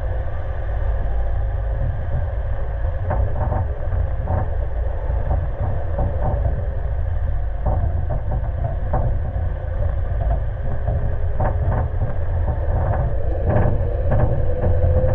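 Suzuki Jimny JB74 driving over a rough dirt track: a steady low rumble with scattered knocks and rattles as it goes over the bumps. Near the end the engine note rises as it picks up revs.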